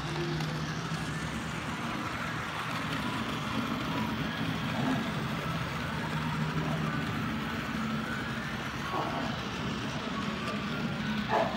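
Bachmann OO-gauge Maunsell N Class 2-6-0 model steam locomotive and coaches running along the layout track with a steady low hum, against faint background chatter; a brief louder sound comes near the end.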